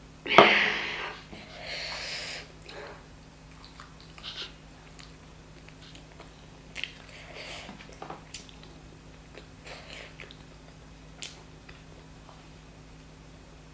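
Close-miked eating of chicken curry and jeera rice: a loud wet mouth sound about half a second in, a softer one soon after, then quiet chewing with scattered short lip smacks and clicks.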